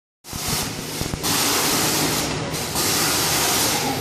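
Spinning biplane amusement ride running: a loud steady hiss over a low mechanical hum, with a couple of brief dips and a few low knocks.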